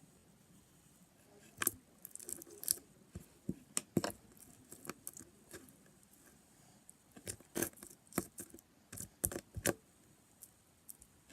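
Sticky slime being pulled and worked off hands, making irregular wet clicks and snaps, in clusters with short pauses between.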